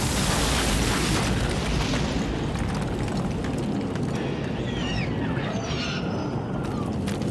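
Steady, deep roar of a rocket launch, a continuous rumble heaviest in the low end, with a few faint high gliding whistles about halfway through.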